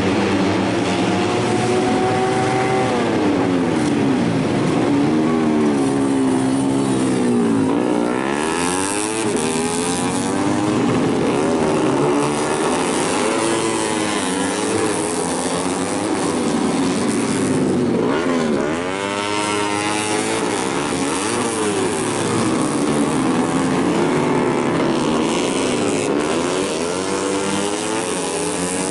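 A pack of tuned four-stroke underbone race motorcycles running at full throttle. Several engine notes climb through the gears and drop as the bikes pass, overlapping one another.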